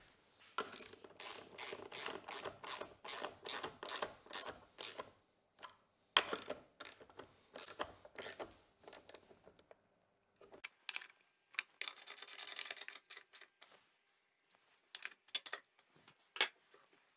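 Socket ratchet wrench clicking in runs of about four clicks a second while a woodworking vise is bolted to the bench, with a short scraping rub about twelve seconds in.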